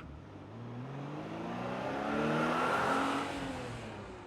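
Car engine accelerating with a rising pitch, swelling louder and then fading away near the end.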